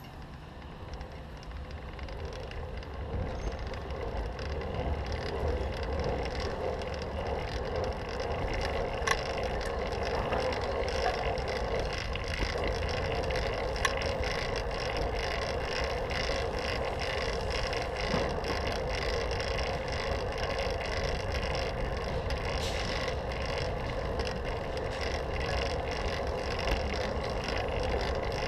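Wind rushing over the microphone and road noise from a fixed-gear bicycle riding on pavement, building over the first several seconds as the bike picks up speed, then steady.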